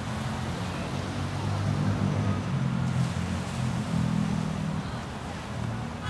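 A motor vehicle engine hums low and steady, swelling about a second and a half in and easing off near the end, over an even hiss of surf and background noise.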